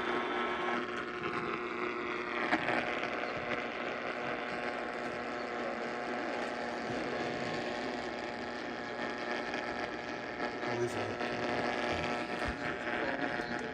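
Steady hiss with a low electrical hum and several faint steady tones underneath.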